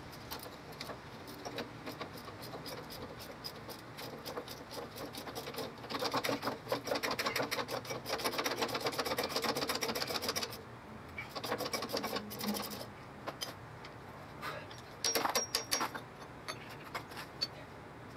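Hand tool worked against the rusted rear hub and leaf-spring hardware of an old E-Z-GO electric golf cart: bursts of rapid metallic clicking, the longest lasting about four seconds near the middle, with two shorter bursts after it.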